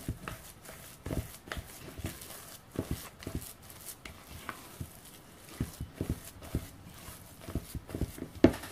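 Silicone spatula stirring and pressing a thick seed dough in a plastic mixing bowl: irregular soft knocks and scrapes, about one or two a second, the loudest near the end.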